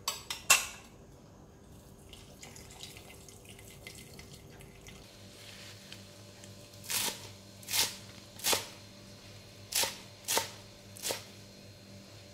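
A metal ladle clinks sharply against the bowl and pot two or three times. Then a knife chops leafy greens on a wooden cutting board, six sharp strokes in two groups of three, about three-quarters of a second apart.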